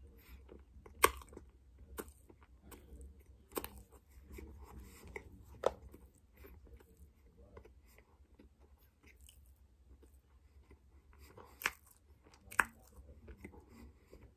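Compacted cornstarch chunks being chewed and crumbled between the fingers: soft crunching and chewing, broken by a handful of sharp, crisp snaps. The loudest snap comes about a second in, and two more come near the end.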